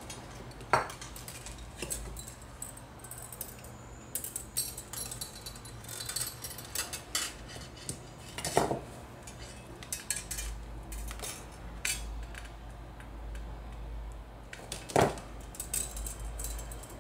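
Aluminium craft wire being bent and wound around a wooden spatula handle: light metallic ticks and scrapes throughout, with three sharper clicks about one, eight and a half and fifteen seconds in.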